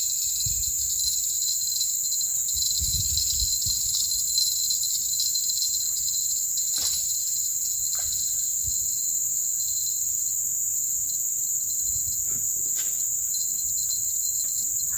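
Steady, high-pitched chorus of insects droning without a break, with a few faint knocks now and then.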